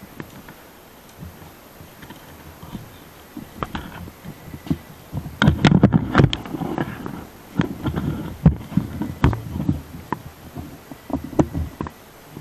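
Irregular rustling, snapping and crackling of dry brush and grass, with low thumps, as someone pushes through vegetation on foot. The sounds build to their loudest cluster about halfway through, then come again more sparsely.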